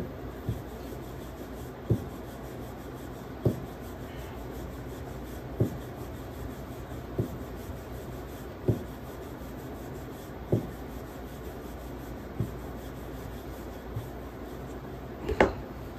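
Wooden rolling pin rolling out chapati dough on a wooden board: a soft rubbing with a dull wooden knock about every one and a half seconds, and a louder double knock near the end.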